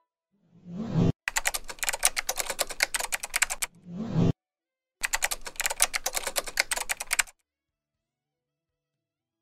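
Keyboard-typing sound effect in two runs of rapid clicks, each about two to two and a half seconds long and each led in by a short rising whoosh; the clicks stop about seven seconds in.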